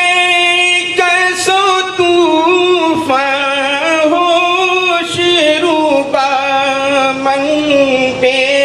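A man reciting a naat (Urdu devotional poem in praise of the Prophet), singing long, drawn-out, wavering notes with no instruments, the pitch stepping down about three seconds in.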